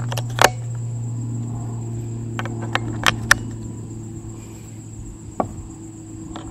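AAA rechargeable batteries being pressed into a plastic battery holder, giving a few sharp clicks: the loudest about half a second in, two close together around three seconds, and one more a little after five seconds. A steady high insect trill runs underneath.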